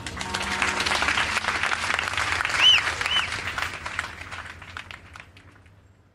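Live audience applauding, with two short rising-and-falling whistles about midway; the clapping thins and dies away over the last couple of seconds.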